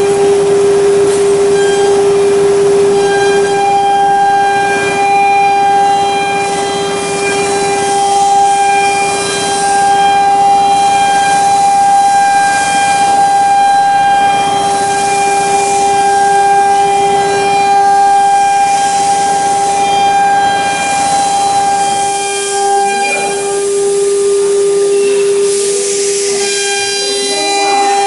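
OMNI 1325 CNC router spindle running at high speed with a steady high-pitched whine, its bit milling a wooden board with a rough cutting noise underneath. About three quarters of the way through the cutting noise falls away and the whine carries on.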